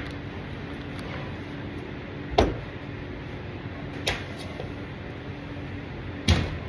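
Three sharp knocks about two seconds apart, the first one loudest, over a steady low hum.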